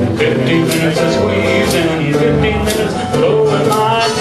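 Live acoustic band playing: an upright bass walking under strummed guitars on a steady beat, about two beats a second. A harmonica comes in about three seconds in.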